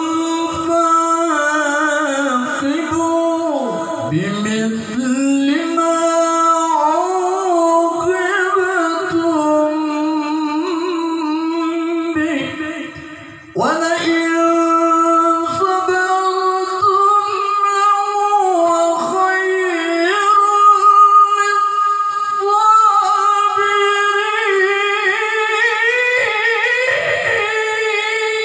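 Qur'an recitation in the melodic tilawah style by a male qari: one voice in long, held phrases with ornamented runs, breaking off for a breath about 13 seconds in before starting a new phrase.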